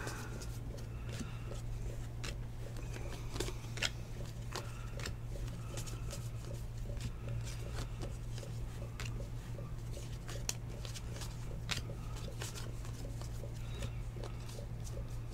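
Trading cards flipped one by one through a hand-held stack: light, irregular clicks and slides of card stock, over a steady low hum.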